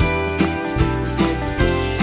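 Background music with a steady beat, about two and a half beats a second.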